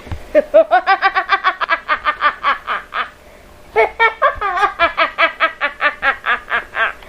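A woman's maniacal evil villain laugh: a long run of rapid, high-pitched "ha-ha-ha" pulses, about six a second, then a short breath gap about three and a half seconds in and a second run just as long.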